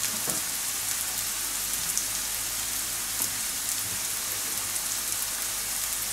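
Diced onion sizzling in oil in a frying pan: a steady hiss with faint scattered crackles. The onion is soft and just turning golden.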